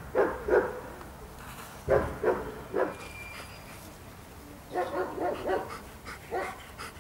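A dog barking in short, sharp barks, in twos and threes, with a quick run of barks about five seconds in.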